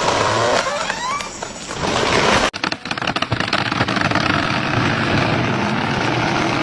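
Loud, steady, rough motor noise, interrupted by an abrupt cut about two and a half seconds in and then running on.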